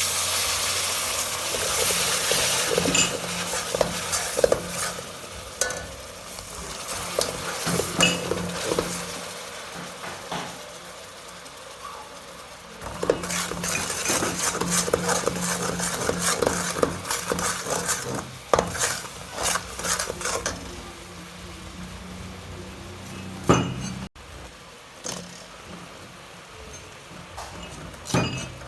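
Pork frying in a pan, a steady sizzle, while a metal utensil stirs it and scrapes and clinks against the pan. The sizzle eases off about nine seconds in, swells again a few seconds later, then dies down to scattered clinks with a sharper knock near the end.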